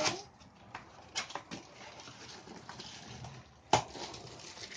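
Cardboard packaging being handled and pulled out of a box: scraping and rustling with a few light knocks, then one sharper knock a little before the end.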